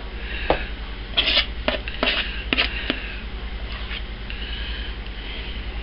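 Handful of short taps and clacks, about six in two and a half seconds, from a spoon working thick soap batter into a soap mold, over a steady low hum.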